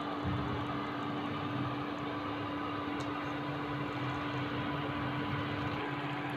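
Steady mechanical hum with a hiss, and a low drone joining in shortly after the start.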